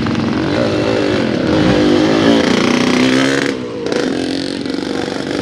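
Motorcycle engine running as the bike rides past close by, its pitch rising and falling.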